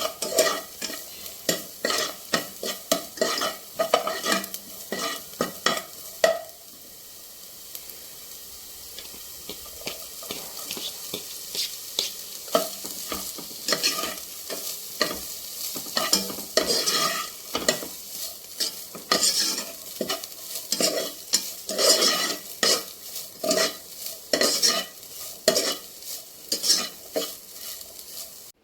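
A spoon stirring and scraping through food frying in a pan, about two strokes a second, over a steady sizzle. The stirring pauses for several seconds after about six seconds, leaving only the sizzle, then starts again.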